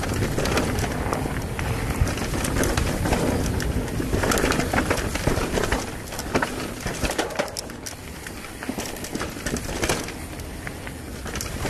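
Mountain bike descending a rocky trail on tyres with inner tubes: the tyres roll over stones and the bike rattles and knocks in quick, uneven clicks. It is louder in the first half and quieter from about halfway.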